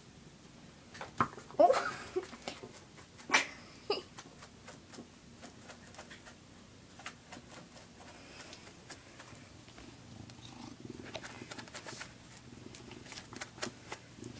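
Domestic cat playing at a door: a few sharp knocks and a short cat call in the first four seconds, then a low, steady purr from about ten seconds in.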